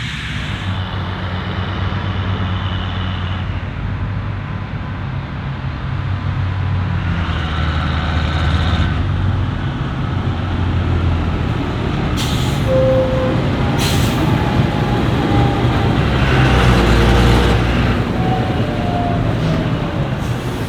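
Heavy diesel farm machinery running under load, its sound swelling and easing as it works and moves, with two short sharp hisses a little past the middle.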